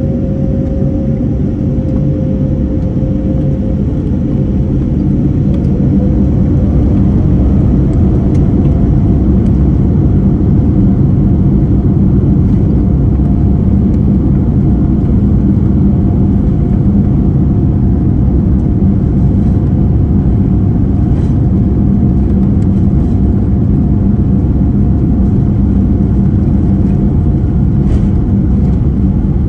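Boeing 787-9 jet engines heard from inside the cabin, spooling up about five seconds in to takeoff thrust. A low tone fades as a higher whine comes in and creeps upward over a loud, steady rumble.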